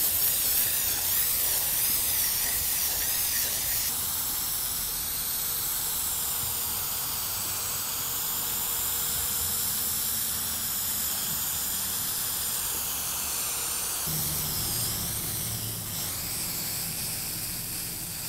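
Aerosol spray can of polycrylic clear finish hissing in a long continuous spray. Its hiss wavers slightly as the can is swept across the panel's glass.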